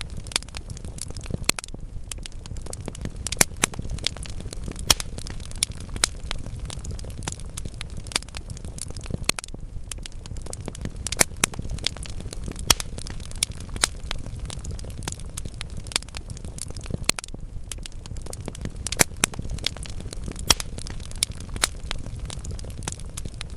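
Wood fire burning in a fireplace: logs crackling with frequent, irregular sharp pops, a few louder than the rest, over a steady low rush of the flames.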